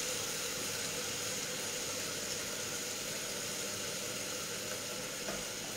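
Pots cooking on a lit gas hob: a steady hiss with an even low hum.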